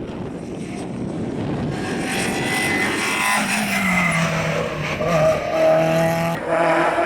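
A rally car's engine running hard and growing louder as the car approaches. About halfway through the engine pitch drops in steps as it slows, then holds steady.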